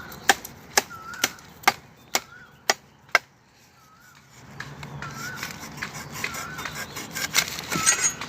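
A machete chopping into a banana plant: seven sharp strikes about two a second, stopping after about three seconds.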